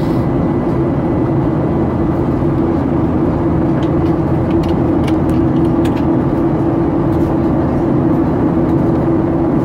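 Steady cabin noise of a Boeing 737-800 in flight: the drone of its CFM56-7B turbofan engines mixed with airflow rush, heard inside the passenger cabin. A few faint clicks sound around the middle.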